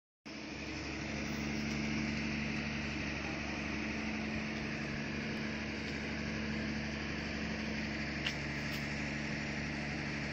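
An engine running steadily with a constant low hum and hiss; two faint clicks come near the end.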